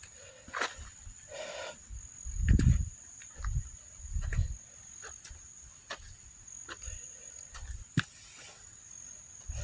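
Footsteps on a forest trail with a few low thumps of wind or handling on the microphone, over a steady high-pitched insect drone.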